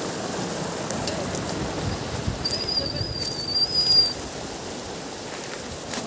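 River water rushing and splashing over rocks, a steady hiss that eases slightly about two-thirds of the way through. About two and a half seconds in, a thin, high, wavering whistle, typical of a bird call, lasts for about a second and a half.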